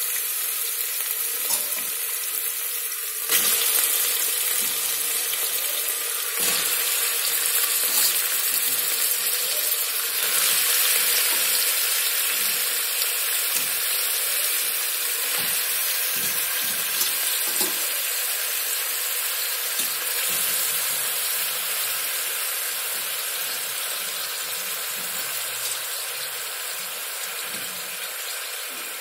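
Raw chicken pieces sizzling in hot oil and ginger-garlic paste in an aluminium pressure cooker, with a wooden spoon stirring and scraping. The sizzle jumps louder about three seconds in as the chicken goes into the hot fat, then slowly dies down.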